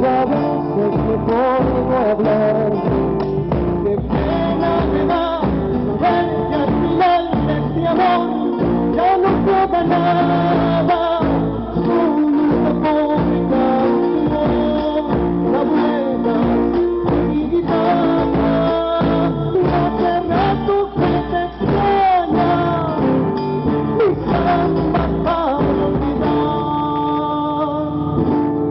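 A zamba, Argentine folk song, sung with acoustic guitar accompaniment. Near the end the voice drops out and the strummed guitar carries on alone.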